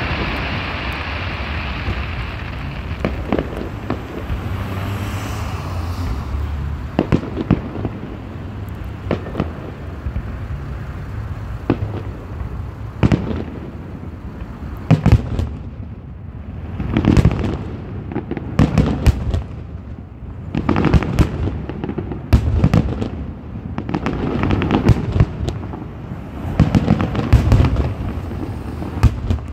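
Aerial fireworks bursting overhead: a crackling hiss at first, then a run of sharp bangs that come thick and fast in the second half.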